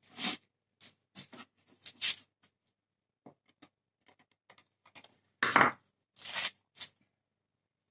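Short scrapes, clicks and rustles of hand pastry work on a steel counter: a fluted pastry wheel cutting dough strips on parchment paper, with the paper rustling and a heavier knock past the middle.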